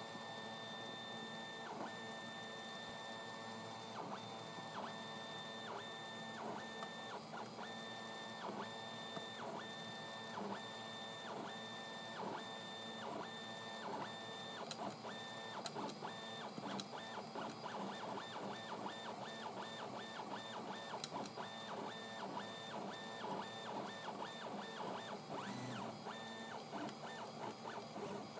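IC3D FDM 3D printer printing, its stepper motors whining in high steady tones that start and stop with each move of the print head. Through the middle the moves turn short and rapid, then lengthen again.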